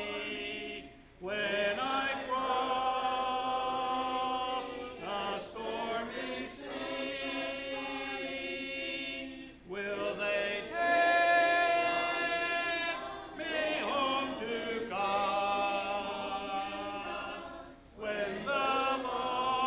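Church congregation singing a hymn a cappella, with no instruments. Long held notes come in phrases of about four seconds, with a short breath between them.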